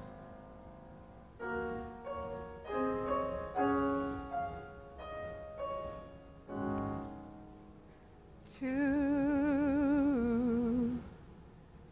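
Sparse piano accompaniment plays a few soft chords and single notes, then a female singer holds one long note with wide vibrato, stepping down a tone partway through before she cuts it off, in a musical-theatre ballad.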